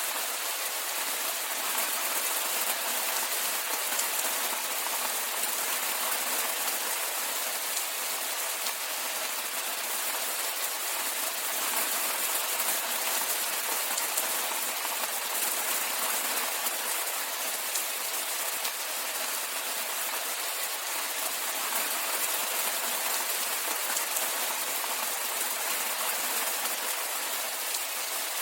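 Steady rainfall: an even hiss of rain falling on surfaces, with no change in strength.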